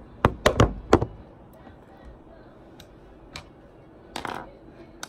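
Handling noise from a phone camera being moved and gripped: four quick knocks and rubs in the first second, then a short rustle about four seconds in.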